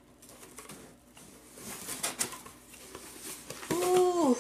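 Packaging rustling and crinkling as an opened parcel is unpacked, with a few sharper crackles about two seconds in. Near the end a woman's drawn-out 'ooh' is the loudest sound.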